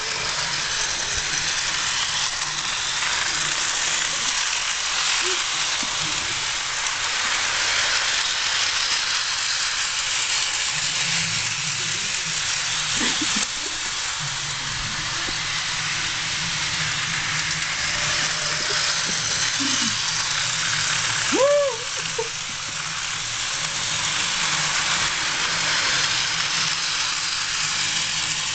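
Electric model train running around its track: a steady whirring hiss with a low hum underneath. About three-quarters of the way in, a brief rising-and-falling call rises above it.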